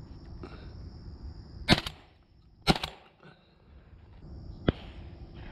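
Shotgun shots at doves overhead: two loud shots about a second apart, then a shorter, sharper crack about two seconds later. The doves fly on unhit.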